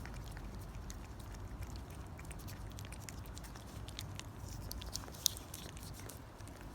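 A cat eating treats at close range: a run of small wet chewing and licking clicks, with one sharper click about five seconds in.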